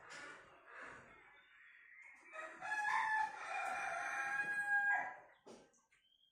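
A rooster crows once, one held call of about two and a half seconds starting a little after two seconds in, with faint bird chirps before it.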